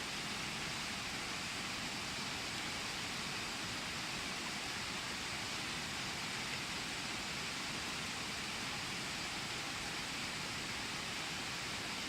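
Mountain stream water rushing, a steady even hiss of flowing water with no breaks.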